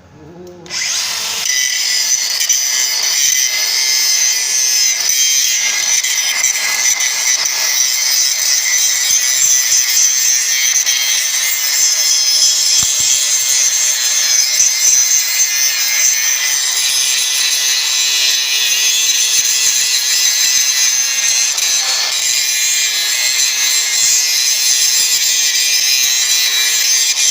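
DeWalt DCG414 cordless angle grinder starting up about a second in, then grinding down steel weld seams with a steady, loud, high-pitched grinding noise.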